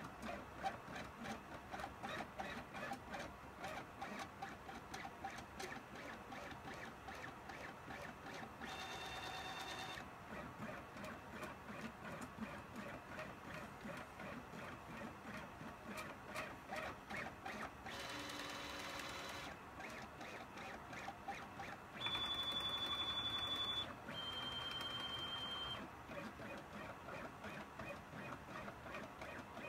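Stepper motors of a CNC pen plotter driving the pen across paper: a buzzing, stuttering whir that changes with each curve of the stroke. Several times the motors hold a steady high whine for one to two seconds, the loudest two of these about three quarters of the way through.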